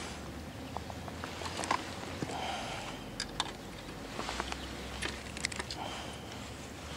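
Light clicks, taps and rustles of hands handling fishing line and a small fish as it is swung in from the water and held for unhooking, with several sharper clicks about three to five seconds in.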